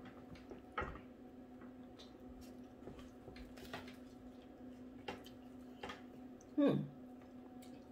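A person eating: a few small, sharp clicks of mouth or utensil sounds, and a short voiced sound falling in pitch near the end, over a faint steady hum.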